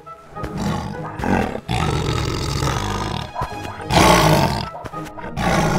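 Tiger roaring several times over background music, the loudest roar a little past the middle.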